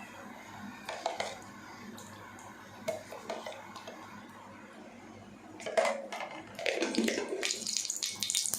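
Metal utensils knocking and clinking against a heated kadai, then a couple of seconds of noisy pouring as cooking oil goes into the pan, near the end.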